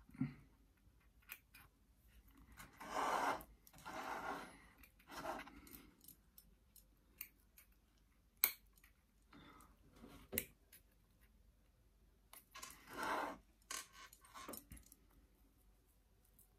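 Pruning snips cutting small yew branches: several sharp clicks as the blades close, with bouts of rustling between the cuts.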